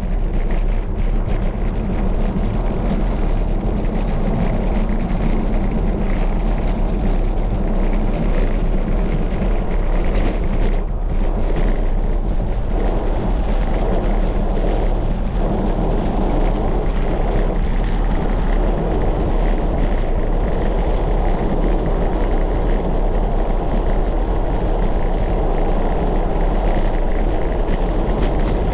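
Steady, loud wind rush buffeting the microphone of a camera on a moving bicycle, a deep rumble with no letup.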